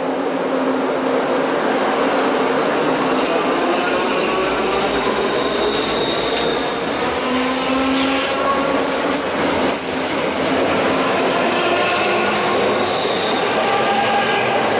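Class 334 Juniper electric multiple unit pulling away past the platform: wheels running on the rail, with its traction motors whining and climbing in pitch as it gathers speed.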